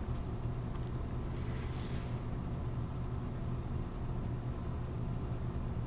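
Steady low background hum, with a brief faint hiss about a second and a half in.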